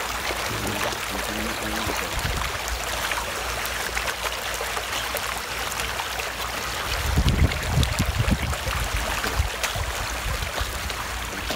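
Water sloshing and trickling over the deck of a swamped boat, with a run of low thumps about seven seconds in.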